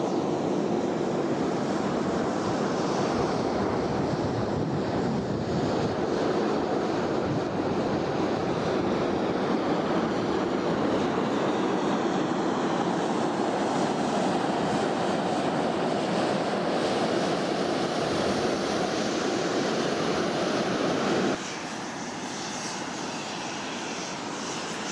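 Volcanic fumarole of the Solfatara crater venting steam with a loud, steady hiss. Near the end it drops suddenly to a quieter hiss.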